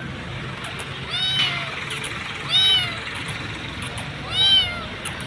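Hungry stray kitten meowing three times, about a second and a half apart, each call rising then falling in pitch: begging for food.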